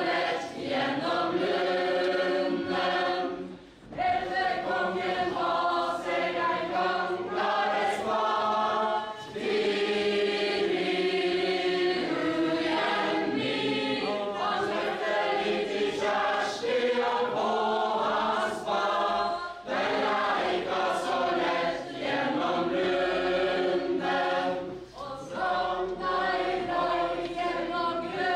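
A mixed group of men and women singing a Norwegian folk ballad together, unaccompanied, as a ballad-dance chain. The singing is steady, with brief pauses between lines.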